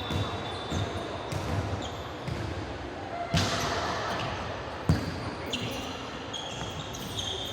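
Indoor basketball play: the ball bouncing on the court, with sharp thuds about three and a half and five seconds in, and short high squeaks of shoes on the floor.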